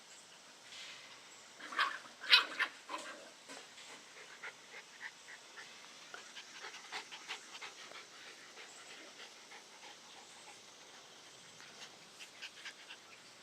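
Puppies panting, with a short cluster of louder sounds about two seconds in and faint scattered small sounds after it.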